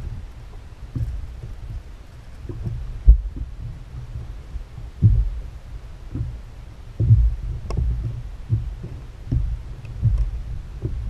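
Small waves knocking against a kayak's hull: a low rumble with irregular dull thumps every second or two, the sharpest about three seconds in.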